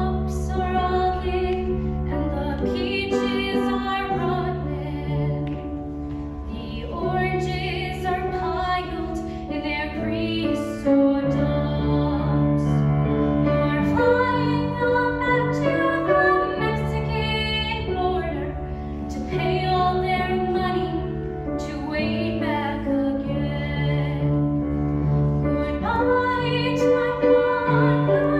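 A girl singing a folk ballad solo, with piano accompaniment holding sustained chords beneath her voice.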